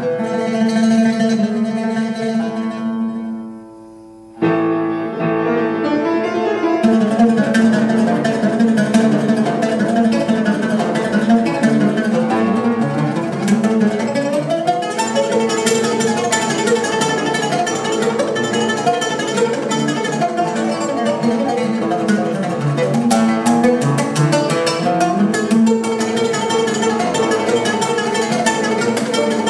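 Oud played solo: held notes die away to a brief pause about three seconds in, then the playing comes back in sharply and runs on in fast, dense runs of plucked notes.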